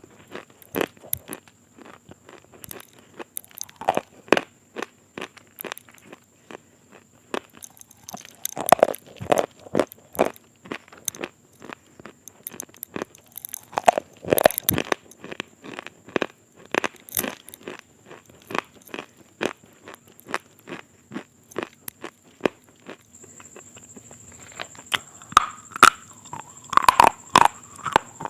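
Close-up crunching of crisp food being bitten and chewed, a dense run of sharp crackly crunches with louder clusters about a third and halfway through and again near the end.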